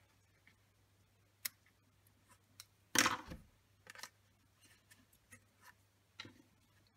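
Scissors trimming the ends of a thin cord: a sharp snip about one and a half seconds in, among faint clicks of the blades. About three seconds in comes a brief rustle as the paper card is pressed and moved on the cutting mat, followed by a few soft taps.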